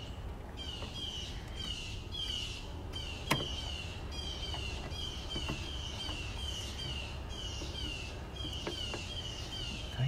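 A bird calling over and over in a steady run of short, falling chirps, about three a second, over a low steady background rumble. One sharp click about three seconds in.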